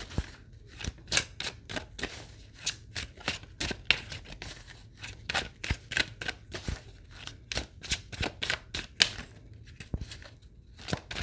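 A deck of tarot cards being shuffled by hand: a quick, irregular run of card snaps and flicks, several a second.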